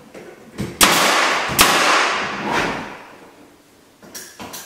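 Pneumatic finish nailer firing nails through timber packing blocks into a wall stud. There are two sharp shots about a second in, under a second apart, each trailing off in a hiss, and lighter knocks near the end.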